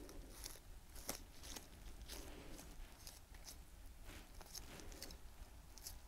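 Knife cutting meat and skin off a wild duck carcass: faint, irregular small clicks and crackles as the blade works along the bone.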